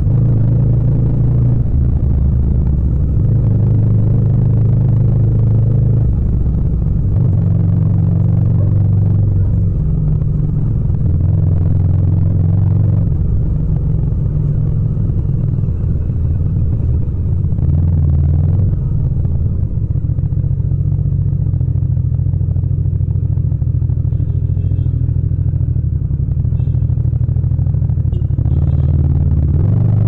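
Yamaha MT-07's parallel-twin engine running with a low, steady note, its pitch shifting up and down every few seconds as the throttle is opened and closed.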